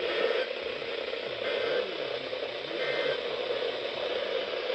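Steady static hiss from a NOAA weather radio receiver in the dead air between alert broadcasts, with no voice.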